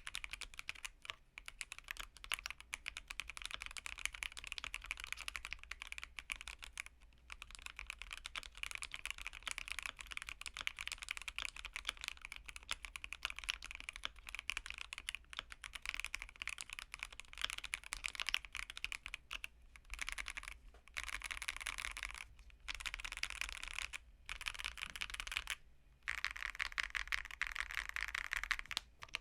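Keychron Q1 mechanical keyboard with Aqua King switches on a polycarbonate plate, fitted with a Taobao tuning kit, typed on fast and steadily. The keystrokes run together into a continuous patter, with a few short pauses late on.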